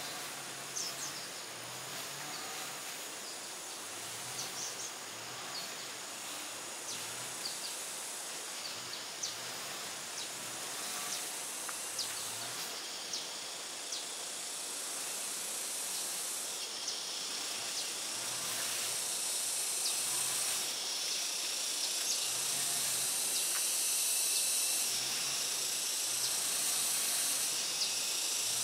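Outdoor ambience with a steady high-pitched insect drone that shifts pitch a few times and slowly grows louder, with scattered faint ticks and chirps.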